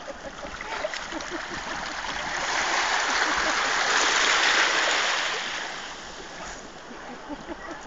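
Seawater splashing and lapping around a dog swimming in the shallows, with small scattered splashes; the water noise swells about a third of the way in and fades again.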